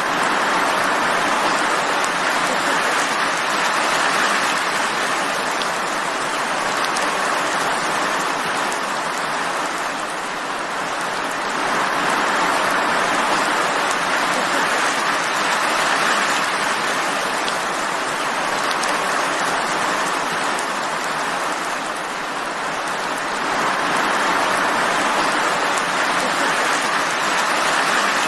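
Steady rain falling, a dense even hiss that swells a little heavier and eases back several times.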